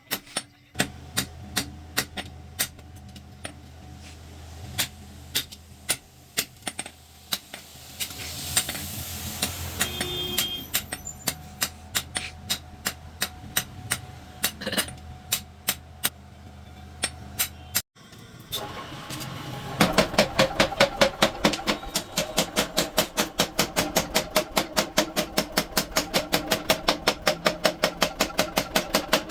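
Hammer blows on bearing steel being forged into a knife. At first the strikes are scattered, about one or two a second, over a steady low hum. Later comes a fast, even run of loud strikes, about four a second.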